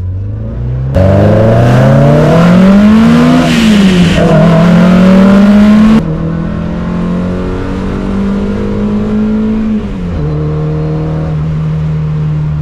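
Simca Rallye 2's four-cylinder engine pulling hard under full throttle. The revs climb, drop at a gear change about three and a half seconds in and climb again, then hold steady before falling at another shift near the end. It is much louder during the first hard pull.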